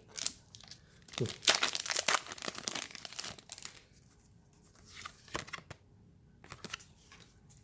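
Foil wrapper of a Pokémon booster pack being torn open and crinkled, in a run of rasping tears about a second in, then lighter crackles as the wrapper is handled.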